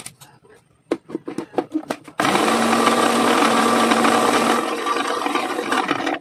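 A few clicks and knocks as the chopper jar is fitted onto an electric blender base, then about two seconds in the blender motor starts and runs at a steady pitch for about four seconds, mincing onion and kinchay (Chinese celery), before cutting off suddenly.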